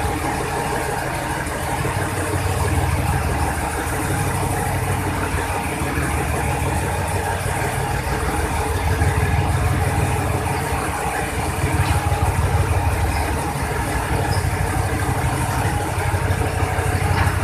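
Diesel train engine idling: a steady low rumble that swells and eases every few seconds, with a faint steady hum above it.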